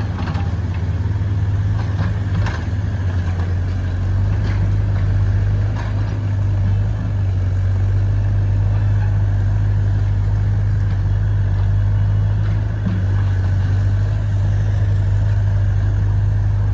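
Diesel engine of an XCMG XE60WA wheeled excavator running steadily at work, a deep even drone. A few light clanks come in the first several seconds.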